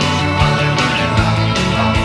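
Background music: an instrumental rock track with guitar, a bass line and a steady drum beat.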